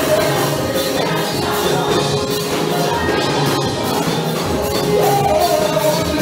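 Gospel praise music: a man leading the song on a microphone with a choir, over a steady drum and tambourine beat.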